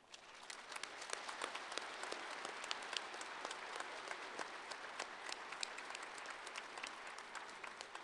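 Audience applauding: many hands clapping together, breaking out at the start and holding steady.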